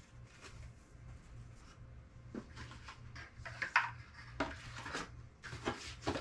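Scattered light knocks and rustles of cardboard toy boxes and packaging being handled, about seven at irregular spacing, over a faint steady low hum.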